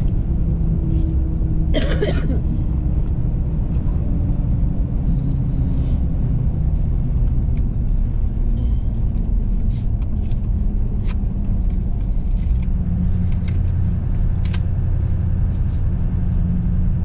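Inside-cab driving noise of a pickup with an LML Duramax V8 turbo-diesel: a steady low engine and road rumble, with a few light clicks and a brief rustling burst about two seconds in.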